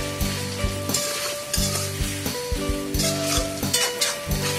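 A metal ladle stirs and scrapes around a metal wok of thick pork-and-blood mixture frying over a fire, with repeated scraping strokes over a steady sizzle. Background music plays underneath.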